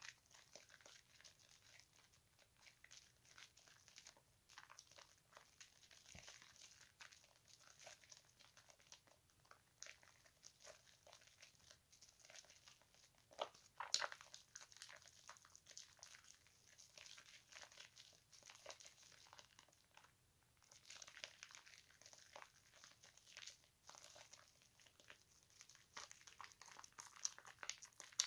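Bar soap being squeezed and kneaded by hand in thick foam in a bowl of water: a faint, continuous wet squishing and crackling of popping bubbles, with a louder squelch about 14 seconds in.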